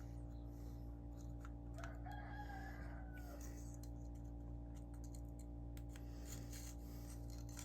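Low steady hum with faint small clicks of reel parts and screws being handled during reassembly. About two seconds in, a faint drawn-out call lasting about a second and a half sounds behind it.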